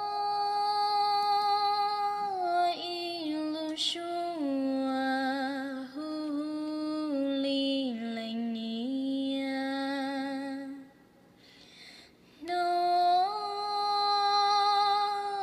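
A woman singing a slow melody in long held notes with vibrato, the line stepping down in pitch. A short break about eleven seconds in, then a new phrase starts on a higher note.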